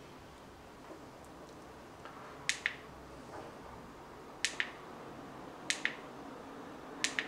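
Remote-control button clicked four times, a second or two apart, each a quick press-and-release double click, as the digits of a four-digit PIN are entered one by one.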